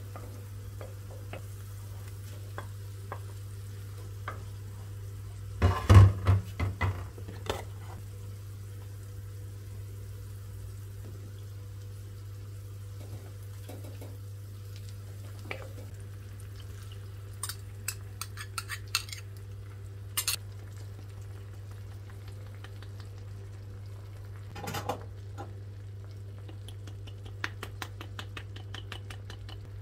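Wooden spoon stirring and scraping onions, tomato and herbs in a clay tagine, with scattered knocks and clicks against the pot. There is a burst of loud knocks about six seconds in and a run of quick light clicks near the end, over a steady low hum.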